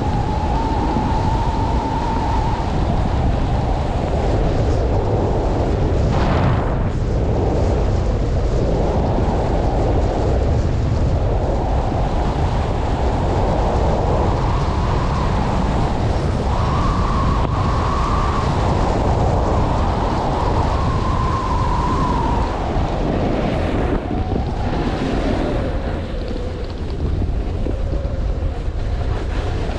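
Strong wind buffeting the microphone in a snowstorm: a loud, steady, low rumble, with a faint wavering whistle that comes and goes.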